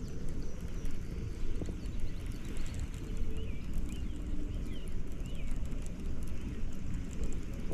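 Low rumbling wind noise on the microphone, with a few short bird chirps heard faintly in the middle.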